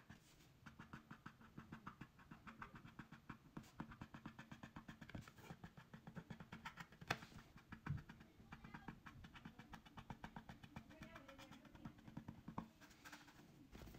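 Faint, rapid ticking and scratching of a paint marker's tip drawing short strokes on a plastic light switch cover, about five strokes a second, with a couple of louder clicks midway, over a faint steady hum.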